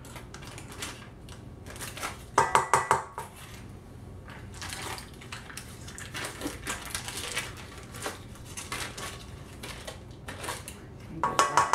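Stainless steel stand-mixer bowl clinking and rattling in quick runs, with a ringing metallic tone, about two seconds in and again near the end, while a foil cream cheese wrapper crinkles and rustles as softened cream cheese is pressed out of it into the bowl.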